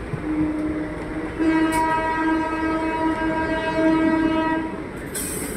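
EMU local train sounding its horn: one long steady note that grows louder about a second and a half in and holds for about four seconds, over the rumble of the coaches rolling past. A short hiss near the end.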